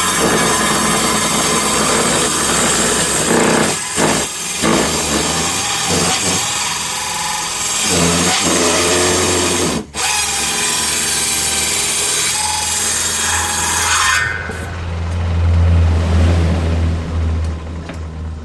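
Power saw ripping a board lengthwise, with loud continuous cutting noise and a brief break about ten seconds in. About fourteen seconds in the cut ends and the saw's motor runs on free as a low hum, fading toward the end.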